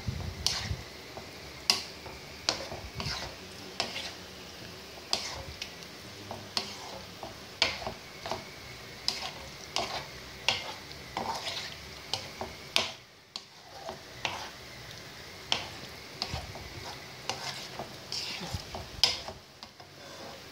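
Black spatula stirring tortellini in cream sauce in a white nonstick frying pan: repeated short scrapes and taps against the pan, about one or two a second, over a faint steady hiss.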